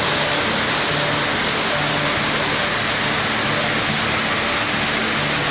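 Steady rushing white noise of a 60-foot waterfall cascading down a rock cliff into the stream below.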